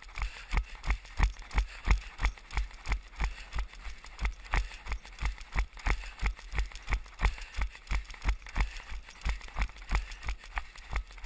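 A runner's footfalls while running canicross behind the dogs: steady, even thuds at about three a second.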